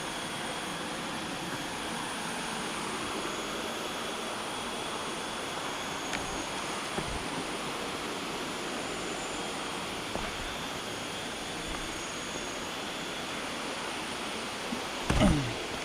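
Steady rush of river water tumbling over boulders below a waterfall, with a faint high steady whine above it. A brief bump about a second before the end is the loudest moment.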